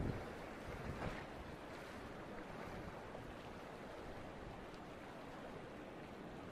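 Steady rush of a choppy sea with wind, and light wind noise on the microphone.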